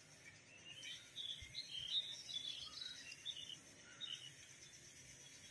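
Small birds chirping faintly outdoors: short, irregular high notes, busiest in the first few seconds and thinning out toward the end.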